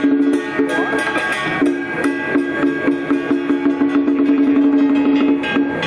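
Music: a long held melodic note with a few brief breaks, over steady percussion strokes about three a second.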